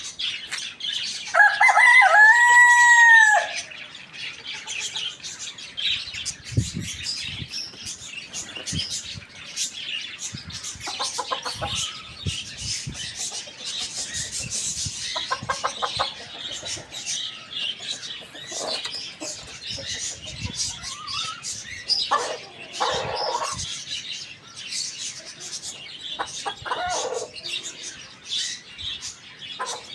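A rooster crows once, loudly, starting about a second in. After it, chickens cluck in short bouts, over constant high-pitched chirping from small birds.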